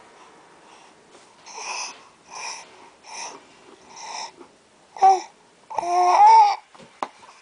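Six-month-old baby babbling: a run of short, soft syllables about one every three-quarters of a second, then a louder, longer vocalisation with the pitch rising and falling near the end.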